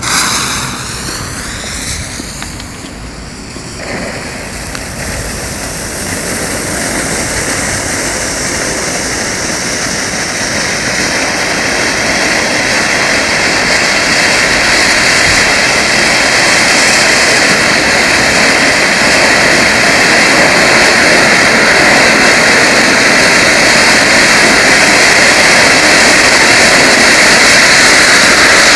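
A ground firework fountain, a gold fountain with a silver-rain effect, spraying sparks: a steady rushing hiss. It catches suddenly at the start and then grows steadily louder through the burn.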